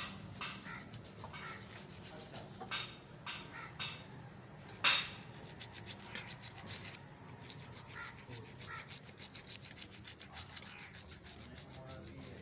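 A few sharp clicks and knocks, the loudest about five seconds in, then a fast, even rubbing scrape from about seven seconds on.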